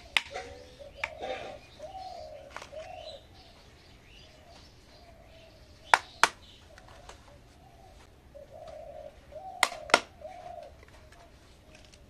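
Hard plastic toy dishes clacking as they are set down on a cloth, in three pairs of sharp clicks: near the start, about six seconds in, and about ten seconds in. A bird coos in the background.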